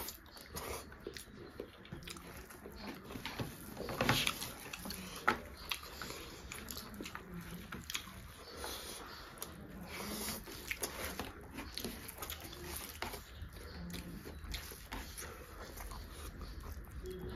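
Close-miked eating by two people: wet chewing and lip-smacking, with many short sharp mouth clicks, the loudest about four and five seconds in.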